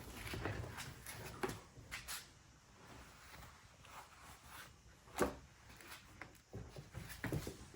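Faint handling noises, scattered rustles and light knocks, as the LED light strip and its wiring are moved and fitted inside the car, with one sharper click about five seconds in.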